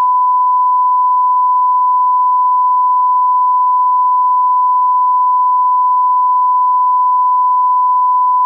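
Colour-bar test tone: a single steady, loud, unwavering beep at the standard 1 kHz reference pitch.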